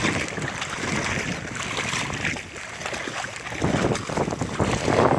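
Wind buffeting the microphone on a small boat on the river, with a fluctuating rush of moving water.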